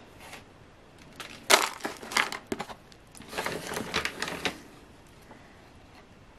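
Thin clear plastic tubs and lids being handled, crinkling and clicking in two bursts, the first starting with a sharp click about a second and a half in, the second around three and a half to four and a half seconds.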